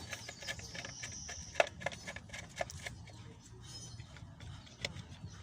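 Scattered light clicks and taps, with one sharper knock about one and a half seconds in, over a low steady hum.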